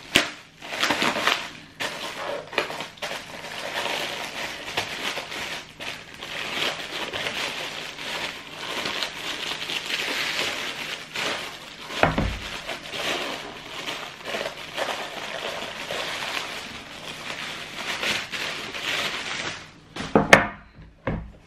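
Plastic packaging crinkling and rustling as it is handled and cut open with a utility knife to free a shoe, with a dull thump about halfway through.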